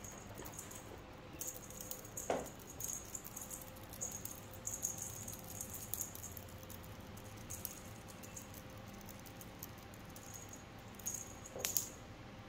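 A small bell jingling in short bursts as cats bat at a ribbon wand toy, with two soft knocks, one about two seconds in and one near the end.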